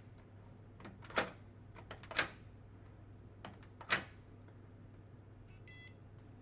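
Mechanical clicks from an electronic fingerprint door lock's handle and latch being turned: a handful of sharp clicks spread over several seconds, the strongest about one, two and four seconds in. Near the end there is a brief, faint, high electronic tone.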